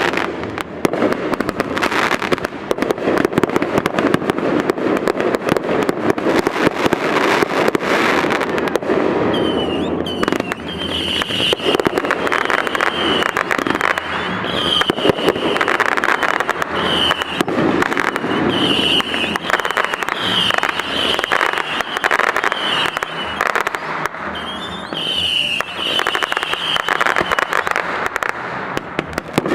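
Fireworks display: a dense, continuous barrage of bangs and crackling. Short high whistles repeat through the middle and later part.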